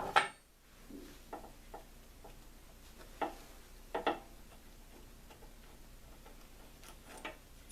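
Scattered light metallic clicks and taps of a small wrench on the bolt that holds the center pin in a Dana 35 differential carrier, as the bolt is loosened. The clicks come a few at a time, with the clearest about three and four seconds in and two near the end.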